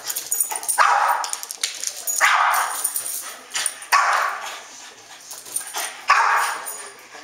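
Boston terrier giving short, rough barks, repeated about every second and a half and growing weaker near the end, with faint ticks of its claws on the hardwood floor.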